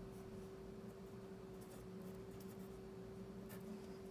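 Felt-tip permanent marker writing on paper in a few faint short strokes, over a steady low hum.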